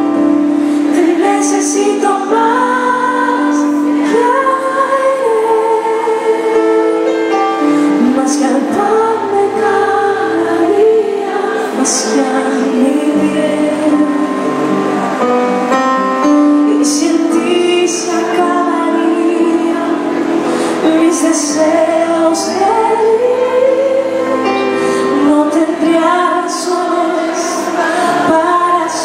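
A woman sings the lead of a worship song live over amplified electric bass and acoustic guitar, her melody bending and holding over the steady band.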